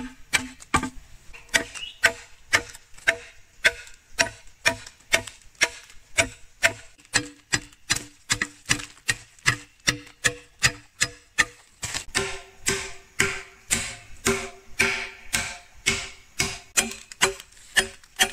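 Machete chopping a green bamboo pole in quick regular strokes, about two and a half a second. Each blow gives a short hollow ring, and the ring steps up in pitch and sounds sharper about twelve seconds in.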